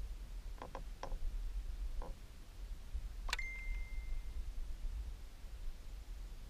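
Low rumble with a few light clicks from the fishing reel and rod as a hooked bass is played on a bent rod. About three seconds in comes a sharp click followed by a clear ding that rings for about a second.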